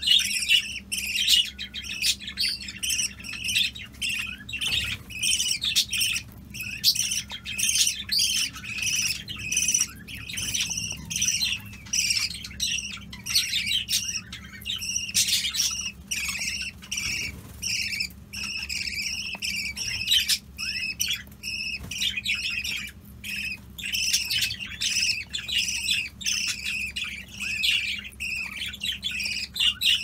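Budgerigars chattering in a continuous stream of rapid, high chirps and warbles.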